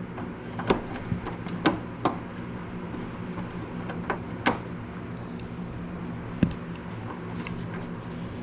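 Scattered light knocks and clicks, about six over several seconds, over a steady low hum.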